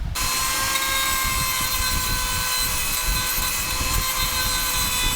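An electric motor cuts in abruptly and runs steadily at one pitch: a high whine over a hiss.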